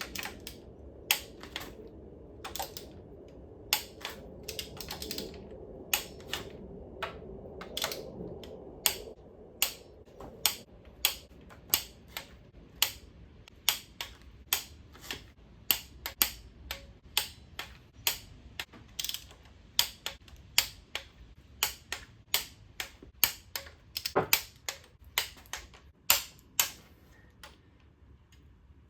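Torque wrench ratchet clicking in short, irregular runs as cylinder head bolts are tightened down. A faint low hum fades away in the first ten seconds or so.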